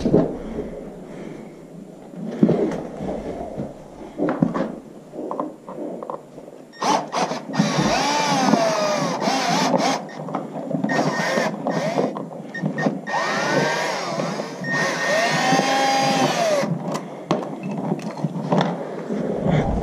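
Cordless drill/driver backing out the screws of a steel strap hinge fixed across a horse's cracked hoof. Its motor whines in several runs from about a third of the way in, the pitch rising and falling as it speeds up and slows. Quieter knocks of handling come before.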